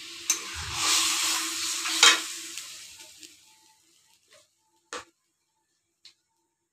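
Curd-and-water kadhi mixture sizzling in a kadai as a spatula stirs and scrapes the pan, with a loud scrape about two seconds in. The sizzle dies away after about three seconds, leaving a few light clicks and a knock.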